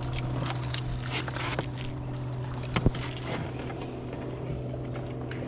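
Boat motor running steadily at a low, even hum, with scattered small clicks and a sharper knock about three seconds in.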